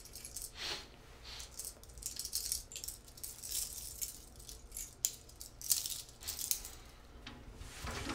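Small metal objects handled at a person's wrist, rattling and clinking in irregular bursts.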